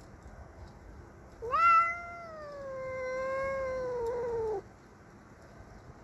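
A house cat gives one long, loud yowl starting about a second and a half in, strongest at the start, then held and slowly sinking in pitch before it cuts off suddenly. It is an angry territorial yowl at a rival cat.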